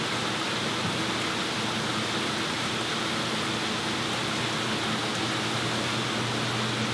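Steady rush of water circulating through rows of plumbed aquarium holding tanks, with a low steady pump hum underneath.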